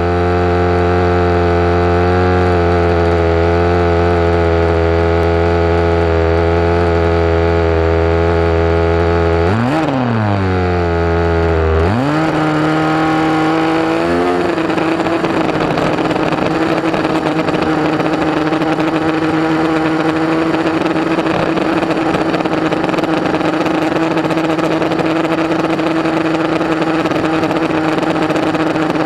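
Onboard sound of an HPI Baja 5B SS's small two-stroke petrol engine, idling steadily at first. About ten seconds in its pitch dips and climbs again, and from about fourteen seconds it holds one steady high note under a rushing noise as the buggy drives at speed.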